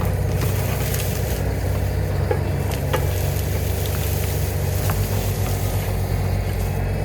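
Excavator engine running steadily under work, with a few sharp cracks of brush and branches breaking.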